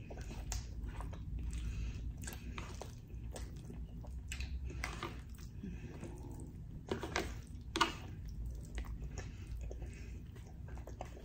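Close-up chewing of someone eating orange chicken and rice, with a fork scraping and clicking in a plastic takeout tray; two sharper clicks stand out about seven and eight seconds in.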